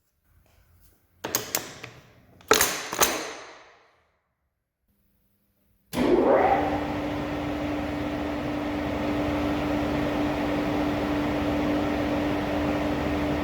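A few sharp clunks with ringing tails, then a metal lathe starts up and runs steadily: an even mechanical whirr with a constant hum from the motor and gearbox.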